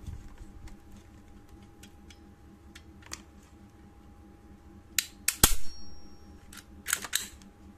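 Clear plastic blister packaging being handled: light scattered clicks, then sharp crackling snaps of the stiff plastic about five seconds in and again near the end.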